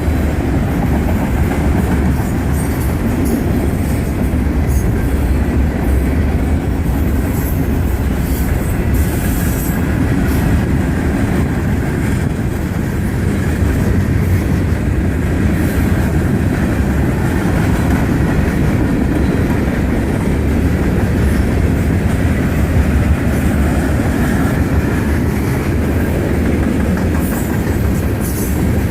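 A train's railroad cars rolling steadily past, their wheels clacking over the rail joints.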